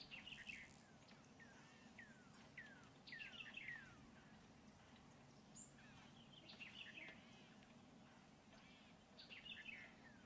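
Faint songbird calls: short runs of quick, downward-sliding whistled notes that come in four bursts a few seconds apart, over a steady low outdoor hum.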